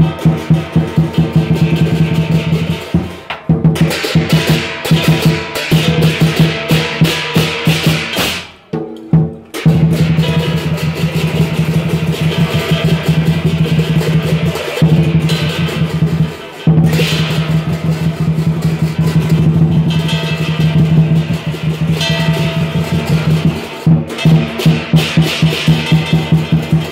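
Southern Chinese lion dance percussion: a large lion drum beaten in fast, steady strokes and rolls, with cymbals and gong clashing over it, breaking off briefly a few times.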